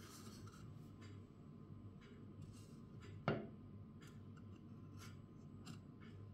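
Faint handling noise of a wooden Boer Dalbergia table tennis blade being turned in the hands: light rubs and small clicks, with one sharper click about three seconds in.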